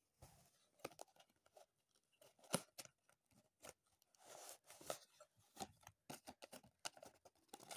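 Cardboard box being opened by hand and folded inflatable plastic armbands pulled out: scattered crinkles, taps and crackles of the packaging and armbands being handled.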